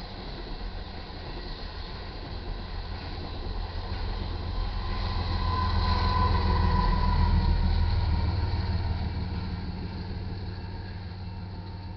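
Tail end of a crude oil train rolling past, with the deep steady drone of the rear distributed-power locomotive's diesel engine (a GE ES44C4) under the rumble of the cars. It grows to its loudest about six to eight seconds in, then fades as the train clears.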